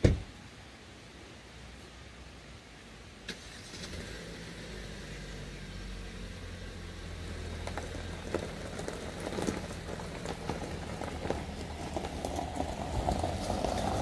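A car engine starts and runs steadily at a low pitch. A crunching, as of tyres on gravel, grows louder toward the end.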